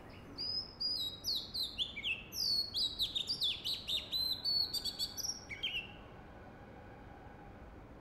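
Oriental magpie-robin singing a rapid, varied run of high whistled notes, many of them sliding down in pitch. The song stops about six seconds in.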